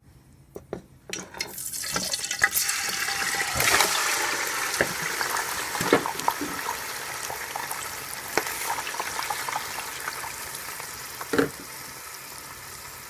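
Diced raw chicken breast dropped into hot oil in a pan, setting off a loud sizzle about a second and a half in that builds for a couple of seconds and then slowly dies down, with scattered pops and clicks.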